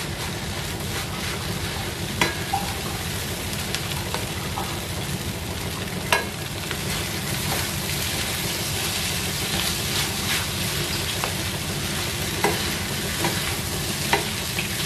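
Fried rice sizzling in a non-stick frying pan while a spatula stirs and turns it, a steady hiss with a few sharp taps of the spatula against the pan.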